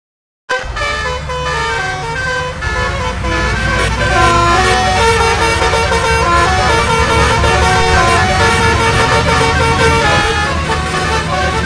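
Bus 'telolet' musical horn playing a rapid tune of short stepped notes over the steady rumble of the bus engine. It cuts in abruptly about half a second in.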